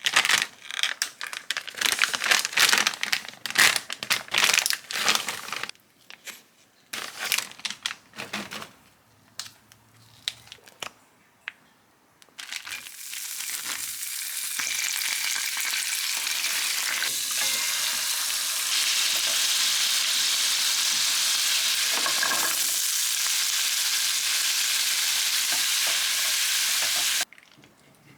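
Food frying in a hot pan: first irregular crackling and scraping strokes as it is stirred, then from about twelve seconds in a steady sizzle that grows a little louder and cuts off suddenly near the end.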